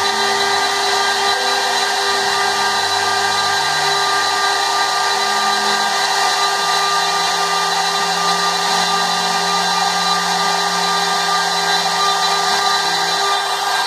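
30 × 40 CNC router running: a steady whine and hiss, with a lower hum that shifts pitch in steps every second or so.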